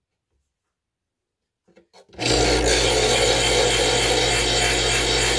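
Electric knife sharpener starting up about two seconds in. Its motor hums steadily while a small kitchen knife's steel blade is drawn through the grinding slot, making a loud, continuous rasping grind as the dull blade is sharpened.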